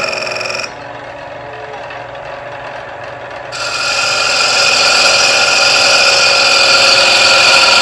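A 3/8" bowl gouge cutting into the inside of a spinning wooden bowl blank on a lathe, slicing it into shavings with a steady, noisy cut. Shortly in, the cutting breaks off for about three seconds and only a quieter hum remains, then the cut starts again.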